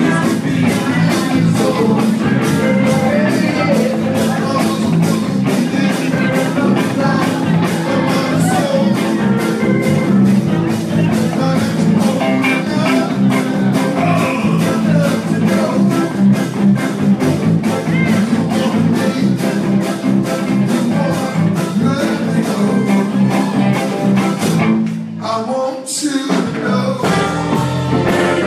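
A live rock and roll band playing with a singer over a steady drumbeat and electric guitar. The band drops out briefly near the end, then comes back in.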